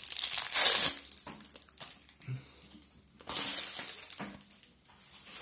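Clear plastic wrapping film crinkling and tearing as it is pulled off a ballpoint pen by hand, in two bursts: one at the start and one past the middle, with a few small clicks between.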